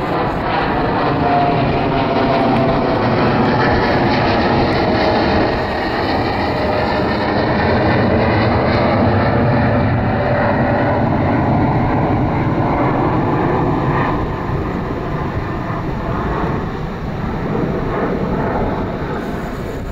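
Boeing 787-9's twin GEnx-1B turbofan engines during a low flyover and climb-away: a loud, steady jet roar with faint tones sliding slowly down in pitch as the aircraft passes, easing a little near the end.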